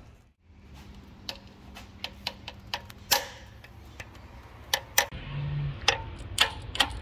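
A hammer tapping a metal-shank screwdriver used as a chisel against a stuck Torx bolt on a diesel engine's fuel rail, driving it round to crack it loose: about a dozen sharp metallic taps at an uneven pace.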